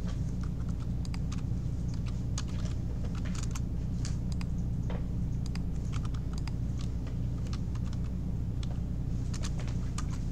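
Computer keyboard being typed on in irregular, scattered key clicks while CAD commands are entered, over a steady low hum.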